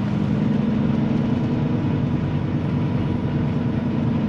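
Semi-truck's diesel engine running steadily at low speed as the rig turns around, a constant low drone.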